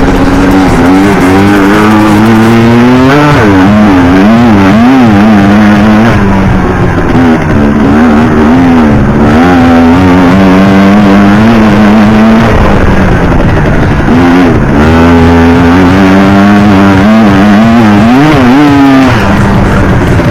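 Yamaha Banshee quad's two-stroke engine revving hard and unevenly under load, the pitch holding steady for stretches and then swinging up and down in quick throttle blips several times.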